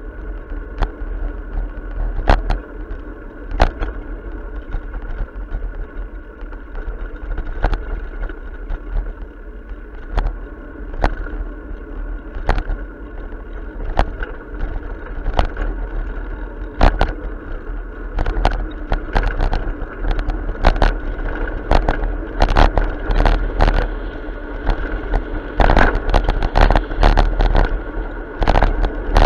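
Bicycle rolling along a paved path, heard from a camera mounted on the bike: a steady low rumble of tyres and wind with irregular sharp clicks and knocks, which come more often and louder in the last ten seconds.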